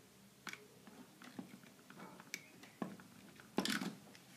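Faint, scattered clicks and taps of a screwdriver and wire ends being worked at the screw terminals of a contactor and thermal overload relay, with a short rustle near the end.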